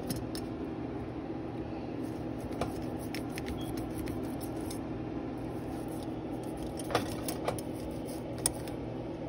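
Ornate metal drawer-pull backplates clinking lightly against each other a few times as they are scrubbed and moved about on a towel, the loudest clink about seven seconds in, over a steady low hum.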